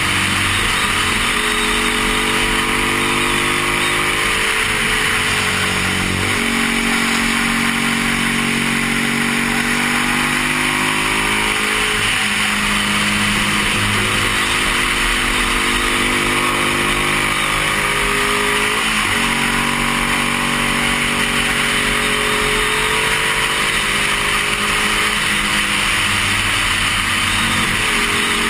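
1972 Honda CB350 air-cooled parallel-twin engine under racing throttle, its pitch climbing in stretches and dropping sharply several times at shifts and throttle changes, heard from a helmet camera with steady wind rush.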